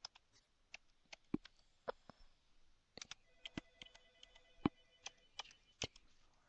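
Faint, irregular keystrokes on a computer keyboard: about a dozen separate clicks spread unevenly, as a serial number is typed.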